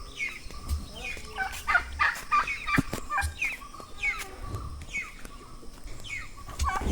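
Domestic turkeys calling: a steady string of short calls, each dropping in pitch, from several birds.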